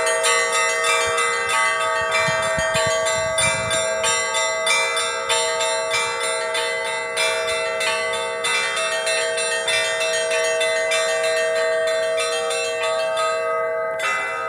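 Church bells of the Assumption Cathedral pealing, struck in rapid succession, several strokes a second, over the ringing of the larger bells. Near the end the striking stops and the bells ring on as they fade.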